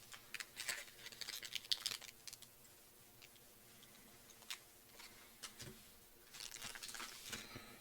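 Faint scattered clicks and rustles of chocolate-bar wrappers being handled, busiest in the first two seconds, with a few lone clicks midway and a soft rustle near the end.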